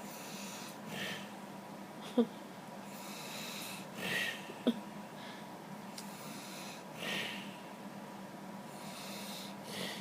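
A man snoring in his sleep, a breathy snore about every three seconds. Two short, sharp squeaks cut in about two and four and a half seconds in.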